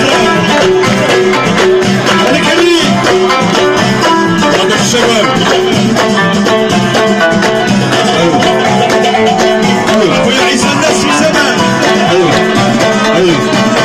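Live band music played loud, with no break.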